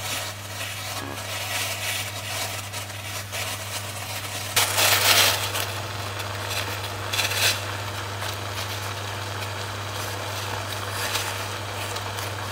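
Water bubbling and crackling in a steel pot of clams on an induction cooktop, under a steady low hum. There is a louder rushing surge about five seconds in and a shorter one a couple of seconds later.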